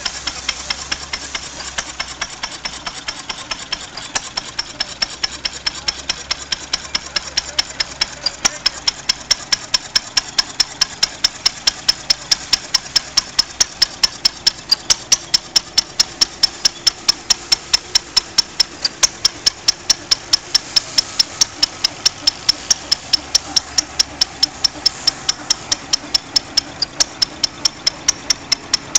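Single-cylinder Bruneau stationary engine running steadily under belt load, with sharp, evenly spaced beats about four a second, over the whir of a Vendeuvre threshing machine being fed with sheaves. The beats become sharper from about eight seconds in.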